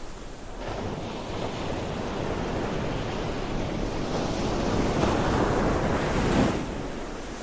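Ocean surf: the rush of a wave swells for several seconds and falls away near the end.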